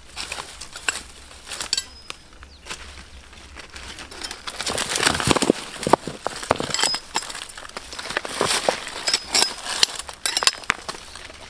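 A machete blade and bare hands digging among rocks and dry soil: irregular clinks, knocks and scraping as stones are pried loose and shifted, busiest around the middle and again near the end.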